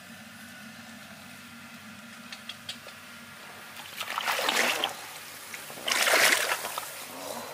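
Two short bursts of water splashing, about four and six seconds in, over a faint steady background.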